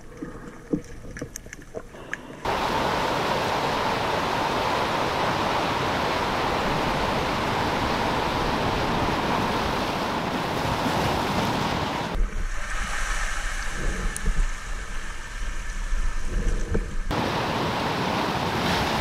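Ocean surf breaking and washing over a rocky shoreline as a steady loud hiss, with a low wind rumble on the microphone for a few seconds past the middle. It opens with a couple of seconds of muffled underwater quiet with a few small clicks, then cuts suddenly to the surf.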